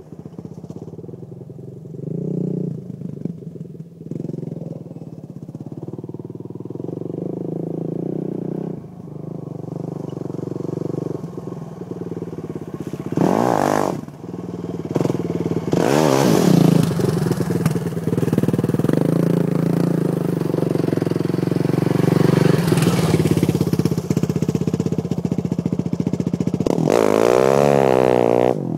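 Honda TRX450R quad's single-cylinder four-stroke engine being ridden hard, its pitch rising and falling with the throttle. It is quieter while the quad is farther off in the first half and louder from about halfway on, when it is close. Near the end it is revved up and down quickly while the rear wheels spin and throw dirt.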